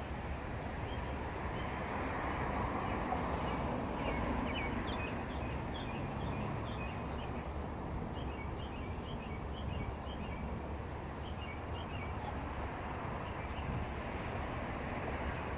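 Steady street traffic noise, with birds chirping over and over through most of it before the chirps die away near the end.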